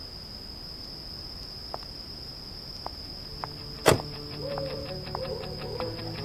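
A steady high-pitched whine with a few faint ticks, then a sharp click about four seconds in. After the click, the web calculator's on-screen piano sounds several held electronic notes together for the letters of the typed name, with more faint ticks over them.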